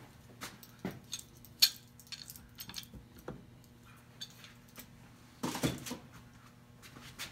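Scattered light metallic clinks and knocks of metal workshop items being handled on a workbench. The sharpest comes about one and a half seconds in, and a short cluster comes about five and a half seconds in, over a low steady electrical hum.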